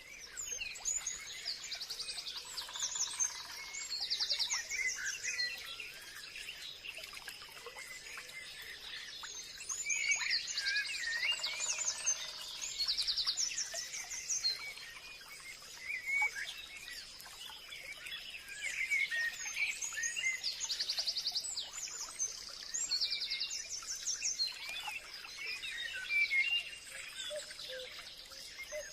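Forest birdsong: several birds chirping, with one song of rapid high trills repeating about every ten seconds, over a faint steady high whine.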